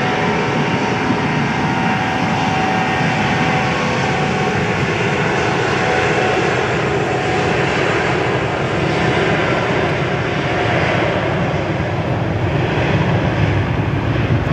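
Airliner engines running at high power as the aircraft moves on the runway: a loud, steady engine noise with a high whine that fades over the first few seconds.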